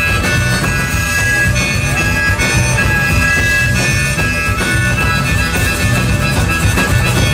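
Live band in an instrumental break: a harmonica solo of held, high notes over a steady bass-and-drum groove.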